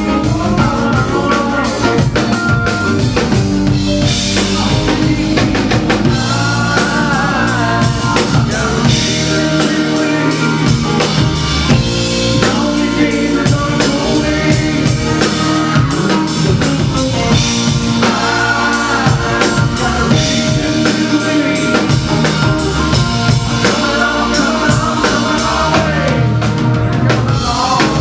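Live rock band playing an instrumental passage, with a drum kit keeping a steady beat under electric guitars and bass.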